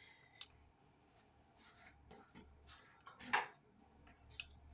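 Faint kitchen handling sounds: a few light clicks and a short rustle about three seconds in, over a low steady hum.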